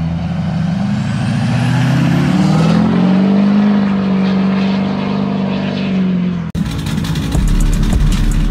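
Straight-piped LBZ Duramax diesel truck engine revving, pitch climbing and then holding high before easing off. About six and a half seconds in it cuts off abruptly into music with a heavy beat.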